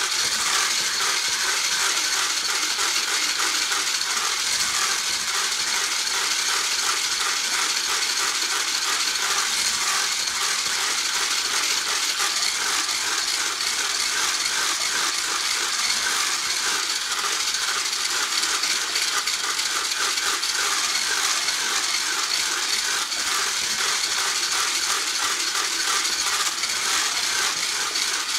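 Handheld electric mixer running steadily at speed, its metal beater rattling and clattering against the sides of a stainless-steel saucepan while whipping cake batter.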